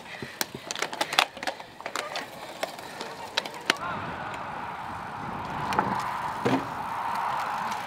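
A cyclocross bike rattling and clicking as it passes close over rough grass, with many sharp knocks in the first few seconds. After about four seconds the clicks thin out and a steady hum takes over.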